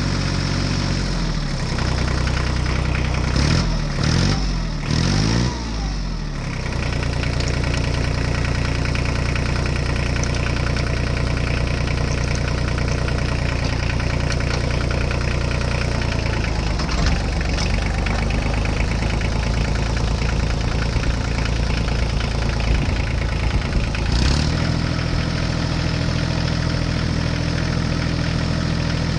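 Engine running steadily with a low, even note, revving up and down a few seconds in and again in the second half.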